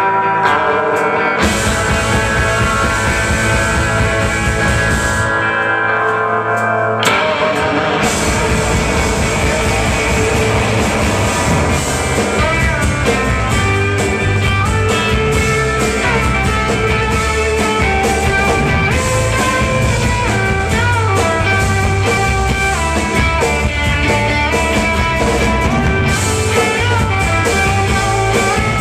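Live psychedelic rock band playing an instrumental passage of electric guitars and drums. It is sparser for the first seven seconds or so; then the full band comes in, with a lead guitar line bending up and down in pitch.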